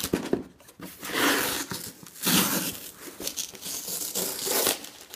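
Cardboard shipping box and its packing tape being pulled, scraped and torn at as a dog works its nose and mouth at it and a hand pulls at the tape: several short rough tearing and rustling spells.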